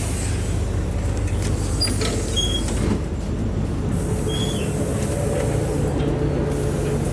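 LiAZ-4292.60 city bus idling at a stop: a steady low engine drone, heard first from beside the open front door and then from inside the cabin. A few short high chirps sound over it about two to four seconds in.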